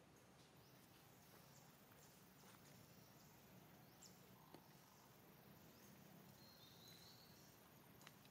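Near silence: faint outdoor ambience with a few soft clicks and a brief faint high chirp about two-thirds of the way in.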